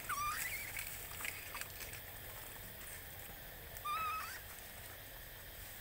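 Baby pig-tailed macaque giving two short, high squealing cries about four seconds apart, the first dipping and then rising in pitch, with light rustling of dry leaves in between.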